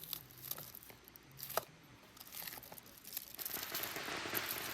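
Plastic packaging of small fireworks crinkling with a few light clicks as the packs are handled. A steady hiss sets in a little past halfway.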